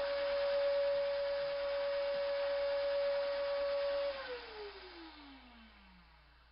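Wet/dry shop vacuum running steadily, drawing water down through a stack of filter bags under suction. About four seconds in it is switched off and its whine falls steadily in pitch as the motor spins down.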